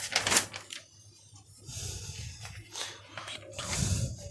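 A few short scraping and rustling noises with a low rumble under some of them, heard at the start and again about two, three and four seconds in.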